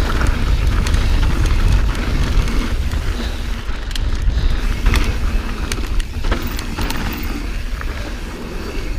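Wind rumbling over a chest-mounted action camera's microphone as a Transition Patrol carbon mountain bike rolls fast over loose, dusty dirt trail, with scattered clicks and rattles from the bike and tyres.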